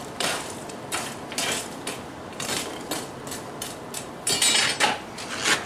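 Irregular light metallic clinks and scrapes of steel tools and stock being handled, with a longer scrape about four seconds in.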